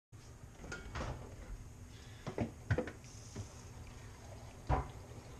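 Knocks and clinks of a lid being handled on a cooking pot, about seven light knocks spread over a few seconds, the loudest near the end.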